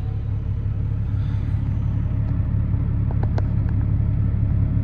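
Semi truck's engine and road noise heard inside the cab: a steady low drone, with a few faint clicks about three seconds in.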